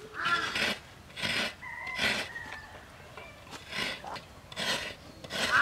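Rough scraping strokes about once a second, from hand-grinding and grating: a stone roller worked over a grinding slab, then a coconut half scraped on a grater. A crow caws near the start and again at the end.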